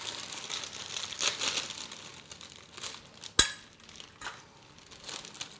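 Kitchen handling noises while plating: light rustling and small clicks of utensils and containers, with one sharp knock about three and a half seconds in.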